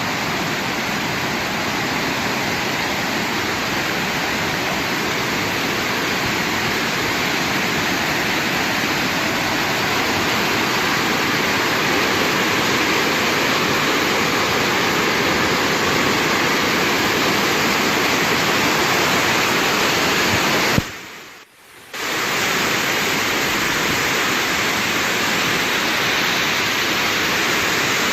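Steady, loud rush of storm water, broken by a gap of about a second roughly three-quarters of the way through.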